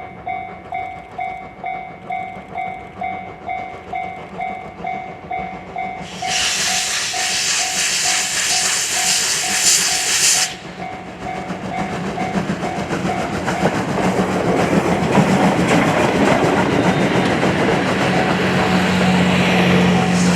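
A level-crossing alarm dings steadily, about twice a second. About six seconds in, a loud hiss of steam from the D51 steam locomotive breaks in and cuts off about four seconds later. The train then passes, growing louder, with the crossing alarm still sounding faintly under it.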